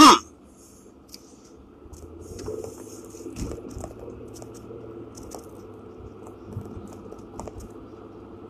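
Car cabin while driving: low steady road and engine hum with scattered small clicks and rattles. A brief, loud, falling swoosh comes right at the start.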